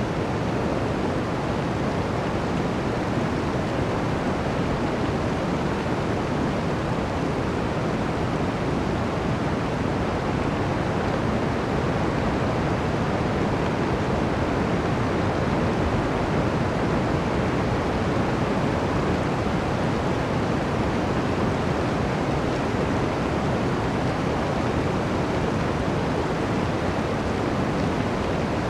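Blizzard wind blowing steadily through a forest: a dense, low rushing of wind that holds at a constant level, with no gusts standing out.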